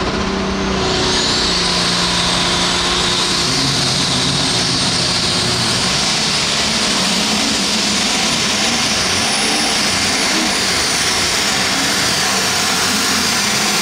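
John Deere pulling tractor's turbocharged diesel engine at full throttle as it launches and drags the sled down the track. It is loud and steady, with a high whine that rises about a second in and then holds.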